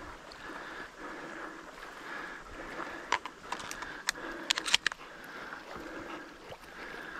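Someone moving through shallow swamp water and tall marsh grass: continuous sloshing and rustling, with a cluster of sharp crackles and splashes about three to five seconds in.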